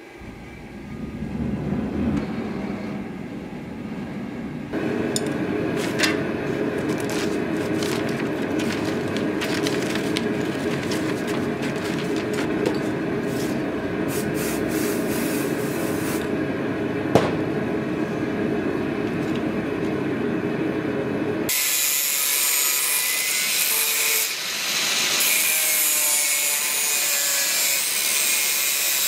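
Steady rasping of tools cutting or abrading steel during pommel making, shifting abruptly in character about five seconds in and again about two-thirds of the way through.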